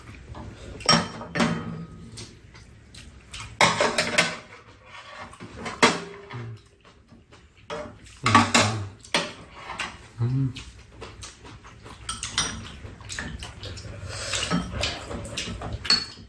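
Eating sounds: chopsticks and metal spoons clicking and scraping against bowls and a pan, with mouth sounds of eating spicy stir-fried octopus, in scattered irregular bursts.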